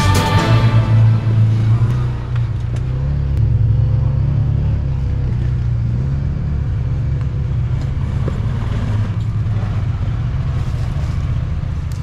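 A motor vehicle's engine running at a steady cruise: a low, even drone with small shifts in pitch. Music fades out in the first second.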